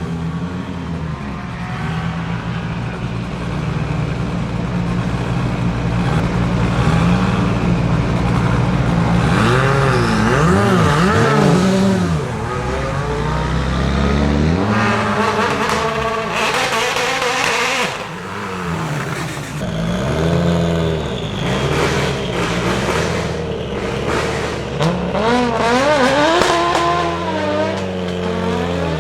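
Audi Sport Quattro S1 E2's 2.1-litre turbocharged five-cylinder engine running at steady revs at first, then revved in a series of quick rises and falls. Sharp crackles are heard about halfway through.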